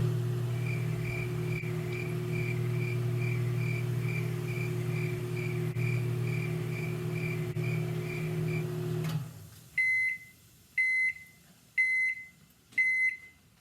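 Microwave oven running with a steady hum and a faint quick ticking, then shutting off about nine seconds in and beeping four times, about a second apart: the end of its cooking cycle.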